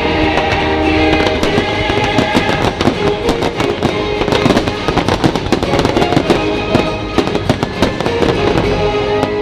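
Fireworks bursting and crackling in rapid, dense succession over a loud music soundtrack.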